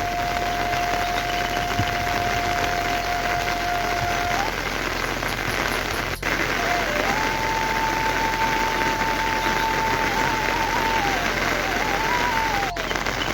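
Heavy rain falling steadily, an even hiss, with a thin melody of long held notes over it that breaks off about four seconds in and comes back a few seconds later.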